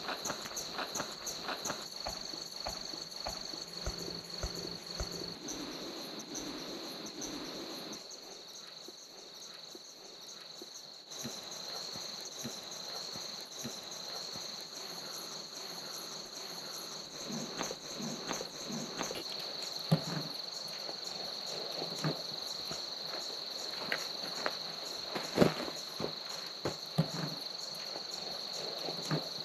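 Steady high-pitched insect chorus, crickets trilling, with scattered rustling and a few sharp knocks in the second half, the loudest about 25 seconds in. A quieter stretch about a third of the way through where the recording is cut.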